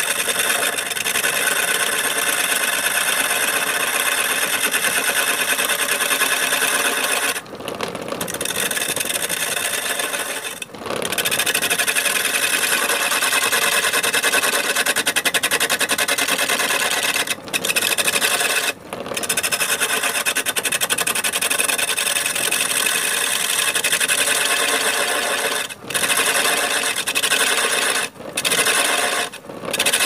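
Chisel cutting a wooden blank spinning on a homemade wood lathe driven by a washing-machine spin-dryer motor: a steady scraping, broken by several short gaps where the tool lifts off the wood.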